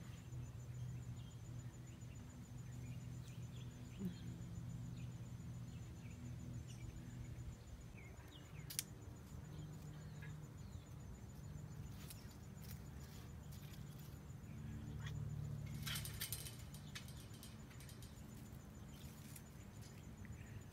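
Faint outdoor background: a steady low hum under scattered faint bird chirps, with a short burst of rustling and clicking about three-quarters of the way through.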